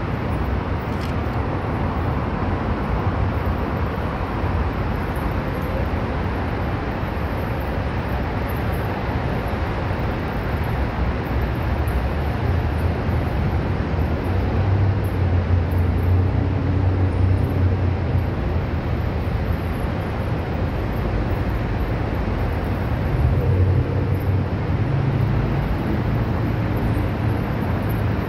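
Steady low rumble of road traffic, with an engine hum swelling louder around the middle and again near the end.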